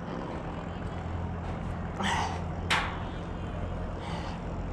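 Steady low hum of riding noise picked up by a body-worn microphone, with two quick, sharp breaths from the rider about two seconds in.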